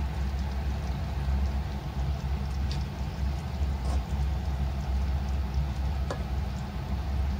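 Steady low hum under a faint, fine crackle from the oyster-sauce braise of tofu and fish simmering in a wok. There is a light click about six seconds in as a spatula touches the pan.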